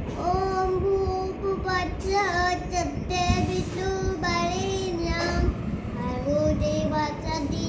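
A young boy chanting a Sanskrit mantra in a sing-song tune, holding each syllable on one of a few notes, over a low background rumble.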